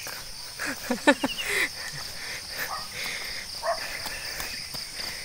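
Steady high-pitched insect chorus from the roadside vegetation. A few short voice sounds break in about a second in.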